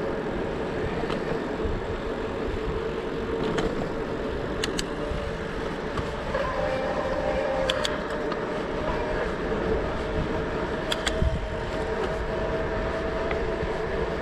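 Bicycle in motion: steady tyre and wind rumble with a faint steady hum. A few sharp clicks and rattles come from bumps in the road.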